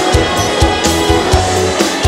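Instrumental march accompaniment with a bass line and a steady drum beat of about two strokes a second.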